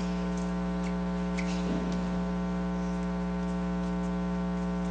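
Steady electrical hum with a ladder of evenly spaced overtones, unchanging in level, over faint hiss, with a few faint clicks behind it.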